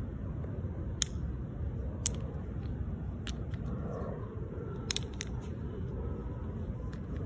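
Wind buffeting the microphone as a steady low rumble, with a handful of sharp clicks and crackles scattered through, three of them close together about five seconds in.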